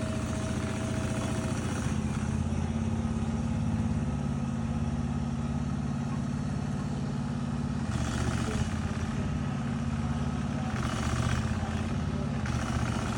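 An engine running steadily at an even speed, with three short bursts of hiss over it in the last third.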